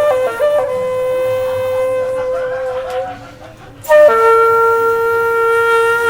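Background music: a wind instrument playing long held notes, with a brief break about three seconds in before the next note.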